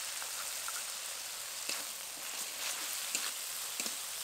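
Tomato and nut-seed paste frying in mustard oil in a kadai: a steady sizzle with scattered small crackles and pops.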